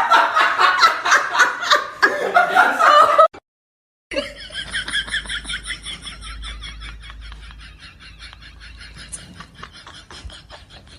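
A person laughing hard in quick bursts, cut off suddenly about three seconds in. After a short gap, a quieter run of rapid, high-pitched pulses goes on and slowly fades.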